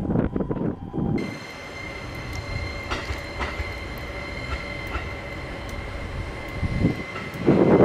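E257 series electric train rolling slowly over depot track, with a steady high-pitched whine and faint clicks of wheels over rail joints. Low rumbling gusts in the first second and near the end.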